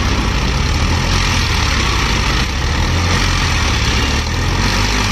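Eicher tractor's diesel engine running steadily.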